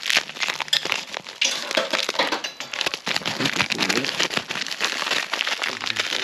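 Packaging being crumpled and handled: a dense, irregular run of crinkling and crackling.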